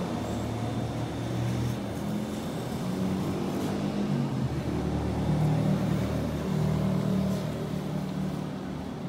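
A vehicle running: a steady low hum whose pitch steps up and down a few times, over background noise.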